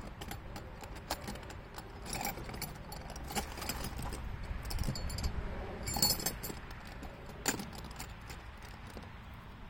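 Metal hand tools clinking and knocking against engine parts while a nut is worked off, with scattered light clicks and a few brighter jangling clatters, the loudest about six seconds in and a sharp knock about a second later.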